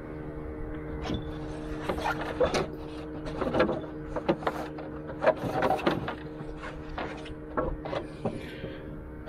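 Irregular knocks and taps on a small wooden canoe, over a steady low hum.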